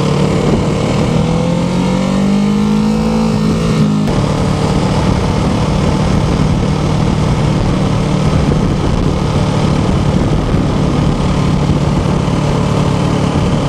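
Kawasaki Ninja 650R parallel-twin engine heard from the rider's seat, rising in pitch under acceleration for the first few seconds, then dropping suddenly at an upshift about four seconds in and running steadily at cruising speed. A steady rush of wind and road noise lies under the engine throughout.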